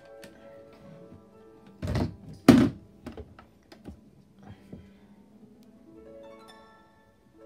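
Seiko alarm clock playing its electronic alarm melody in plain chiming tones. About two seconds in there are two loud thunks. The melody then stops, with a few small clicks, and starts again about six seconds in.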